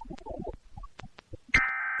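Emergency Alert System SAME header, the digital data burst that opens a required weekly test, heard off a radio broadcast. It starts abruptly about one and a half seconds in as a loud, steady buzzing warble, after faint, broken radio audio.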